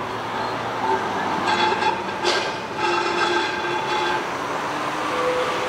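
Vintage two-car Basel tram running past on its rails, with wheel noise on the track and several held squealing tones from about a second and a half in until about four seconds in, and a single sharp clank a little over two seconds in.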